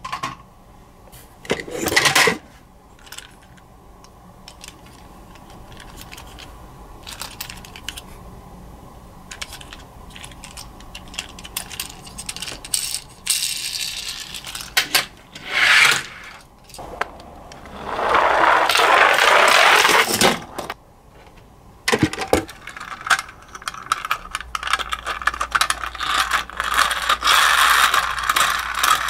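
Plastic toy ambulances clattering and clicking against each other and the cardboard box as they are picked out and handled, with a few longer rushing noises among the clacks.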